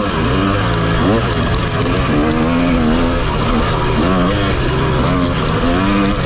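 KTM 250 dirt bike engine revving up and down again and again as the throttle is worked on tight trail, with a steady rushing hiss underneath.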